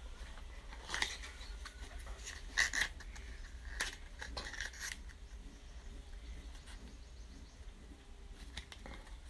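A bar of soap and its paper carton being handled: a few light clicks, taps and rustles in the first half, then only faint handling noise.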